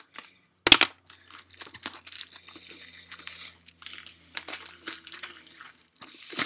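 Plastic shrink wrap crinkling and tearing as it is pulled off a boxed DVD set, with one sharp crackle a little under a second in and a burst of louder crinkling near the end.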